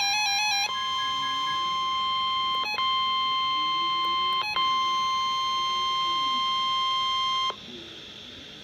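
Emergency Alert System alarm tones: a warbling tone that steps between two pitches ends less than a second in. It gives way to the steady single-pitch NOAA Weather Radio warning alert tone, which drops out briefly twice and cuts off about 7.5 seconds in. This leaves faint hiss ahead of the severe thunderstorm warning message.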